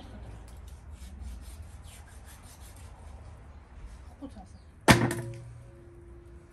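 Knives cutting and scraping hide off bull legs, with faint scrapes and small ticks, then about five seconds in a single sharp clang with a short metallic ring as something strikes a large aluminium basin.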